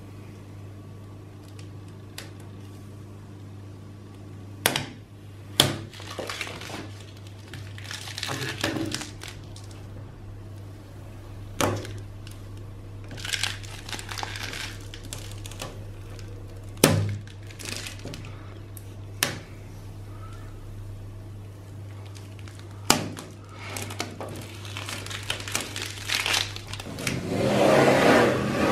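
Black plastic stencil film being peeled off a freshly painted sign, crinkling, with sharp clicks now and then. Near the end, masking tape is pulled off the sign in a longer, louder tearing rasp.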